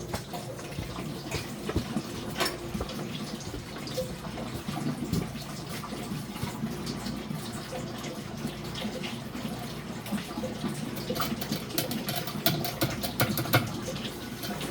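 Water running steadily, with many small splashes and clicks.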